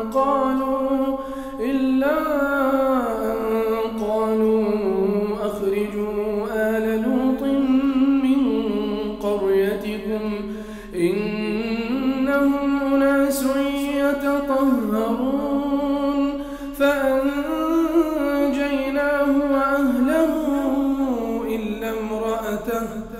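A man's voice reciting the Quran in melodic tajweed style. The phrases are long, drawn out and ornamented, gliding up and down in pitch, with a few short breath pauses between them.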